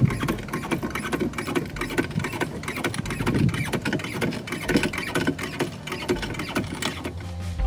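Hydraulic floor jack being pumped to lift an SUV: a fast, dense run of mechanical clicks and knocks.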